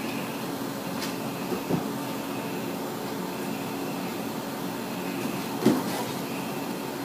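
Steady low hum of a running household appliance, with two soft thumps: one about two seconds in and a louder one near six seconds.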